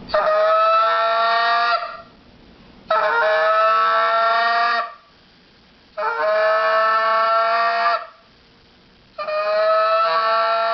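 Goose call blown in the 'train' note: four long, steady, held notes of about two seconds each, with short gaps between them. It is the note used to show an aggressive, emotional goose.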